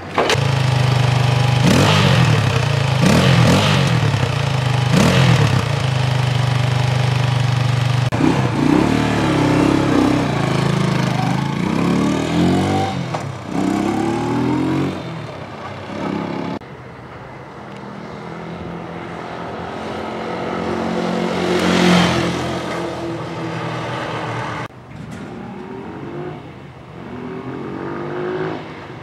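Motorcycle engine catching and revved in three sharp blips while standing. It then pulls away, rising in pitch through several gear changes. Later the bike comes closer, growing louder until it passes near the microphone, and then accelerates again.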